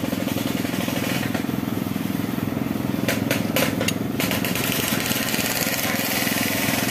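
An engine running steadily, with a quick cluster of sharp metal clicks about three seconds in as a magneto flywheel rotor is fitted by hand onto a motorcycle crankshaft.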